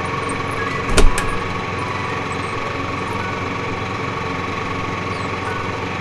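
Steady mechanical hum, like a running engine, with one sharp knock about a second in.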